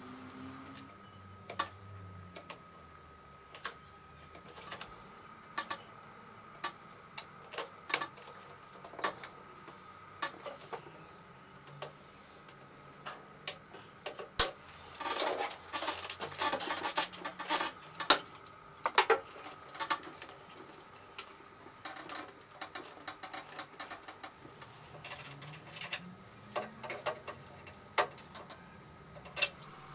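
Hand tools and metal trim clicking and tapping against a vintage Vespa's steel body as floor runner strips are fitted and their screws and nuts tightened: scattered sharp clicks, with a dense flurry of rapid clicks a little past the middle.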